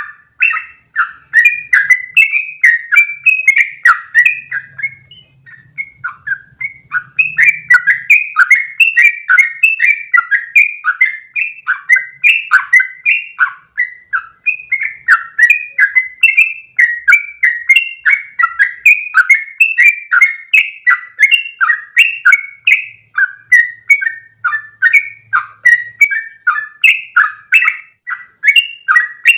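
Yellow-vented bulbul (trucukan) singing a long, rapid run of short bubbly notes, about two to three a second, with a brief pause about five seconds in. This is the continuous 'ropel' song used as a tutoring recording for captive birds.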